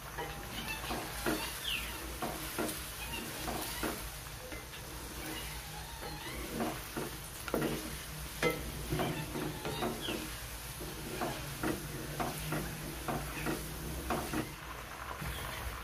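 Chicken pieces sizzling in oil in a nonstick wok while a wooden spatula stirs them, knocking and scraping against the pan at irregular moments. A steady low hum runs underneath.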